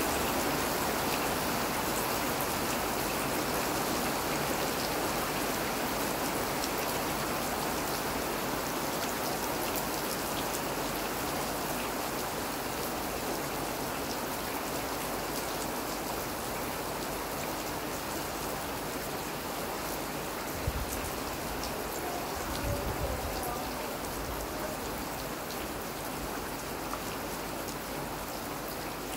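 Steady rain falling and pattering on surfaces, slowly getting a little softer, with a couple of brief low thumps about two-thirds of the way through.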